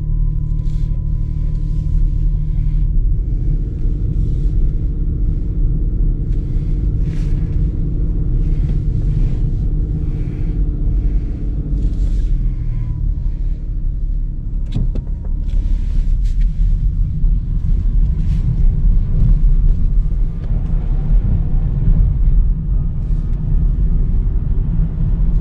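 Inside the cabin of a Nissan Note e-POWER driving slowly on wet roads: a steady low rumble of road and tyre noise. A faint hum runs through the first half, and a few brief hisses come from the tyres on the wet surface.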